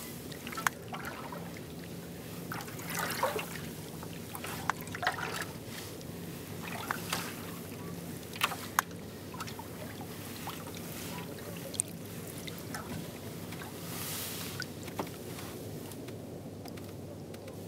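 Kayak paddle strokes through calm water: the blades dip and splash every second or two, with drips running off, a few sharp clicks, and a steady low hum underneath.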